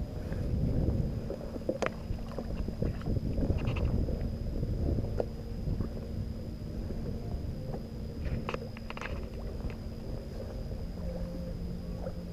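Wind buffeting a GoPro's microphone over water lapping against a boat hull, with a few light clicks and a faint steady hum underneath.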